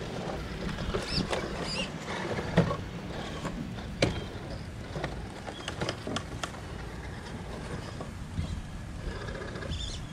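Redcat Gen8 Scout II 1/10 scale RC crawler's brushless motor and drivetrain working it over loose wooden boards. Its tyres scrabble and its chassis knocks on the planks, with sharp knocks about two and a half and four seconds in. It is tipping over at the end.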